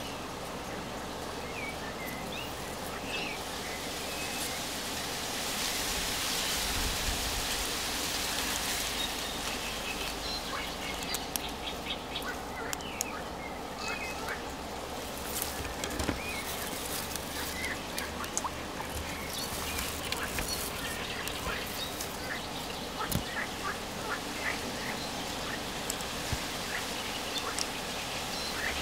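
Riverside ambience: many short animal calls scattered throughout over a steady outdoor hiss.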